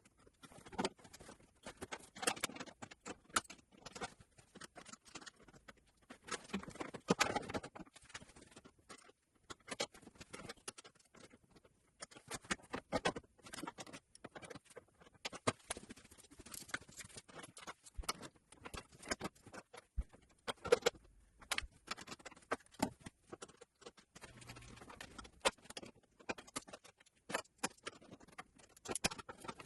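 Irregular clicks, taps and short scrapes of hands and tools working on a pickup's front end, popping out the plastic clips that hold the grille.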